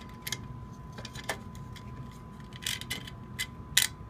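Irregular light clicks and taps, about half a dozen, as the manual fire alarm pull station is handled and worked on, with a faint steady high tone underneath.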